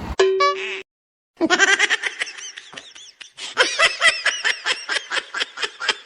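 A short steady tone, then after a brief silent gap a long run of high-pitched laughter in quick repeated bursts.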